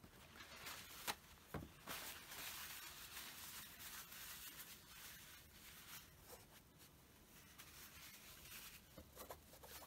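Faint rustling of a paper tissue being handled and crumpled, with a sharp tap about a second in and a lighter knock soon after.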